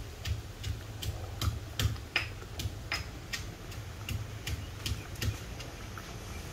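Thick ponnanganni keerai kootu bubbling in a clay pot, its bubbles popping in a steady run of soft plops and clicks, two or three a second.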